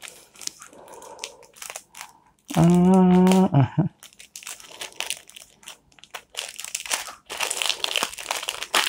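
Clear plastic packet around a mask filter crinkling as it is handled and opened, getting louder from about seven seconds in. A short spoken sound breaks in at about three seconds.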